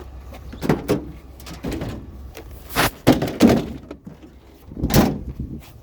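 Several separate thuds and clunks of objects being handled and set down, the loudest about three seconds in and near the end, over a low steady rumble.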